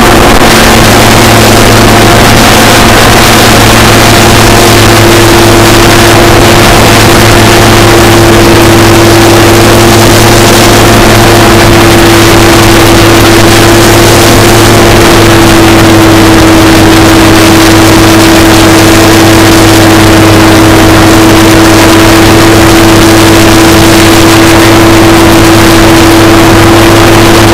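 Hovercraft engine and propeller running hard at cruising speed on a test run after a reduction-gearbox repair: a very loud, steady hum over a dense rushing noise. The pitch drops slightly a little past halfway.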